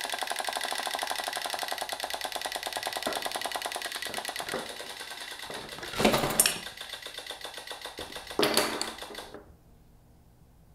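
Wind-up chattering-teeth toy's clockwork running in a fast, even rattle, which stops suddenly about nine and a half seconds in. A louder rush and clatter about six seconds in as a compact umbrella springs open, and another clatter about eight and a half seconds in.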